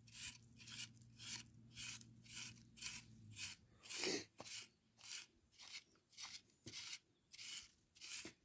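Rhythmic scraping and scratching in dry sandy soil, about two strokes a second, as the ground is worked to dig out potatoes. One stroke about halfway through is louder than the rest. A faint low hum stops about a third of the way in.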